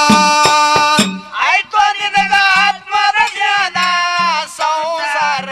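Dollina pada folk devotional music between sung lines: a held melodic note for about a second, then a wavering, gliding melody over a steady drum beat.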